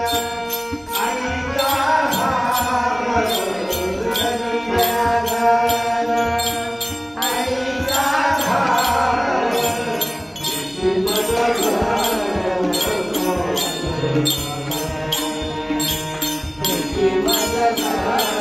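A man singing a Marathi abhang, a devotional song, with a wavering melodic line that pauses briefly twice. Under it are steady held accompanying notes and regular metallic strikes, about three a second, as from small hand cymbals.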